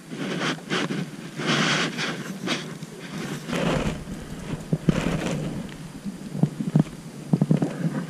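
Wind buffeting the microphone in irregular gusts, with a deeper rumble setting in partway through, and a few light knocks in the second half.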